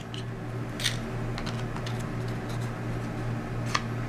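A few light clicks and taps from handling a small liquid-blush bottle, over a steady low hum.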